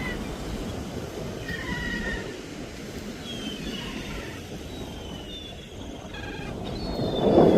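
Gulls calling in short, repeated cries over the steady rush of surf and wind, with a louder surge of surf near the end.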